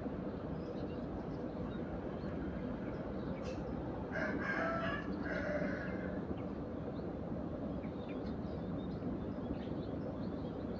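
A rooster crows once about four seconds in, a call of about two seconds in two parts, over a steady low background rumble. Faint short chirps, fitting house sparrows, come through later.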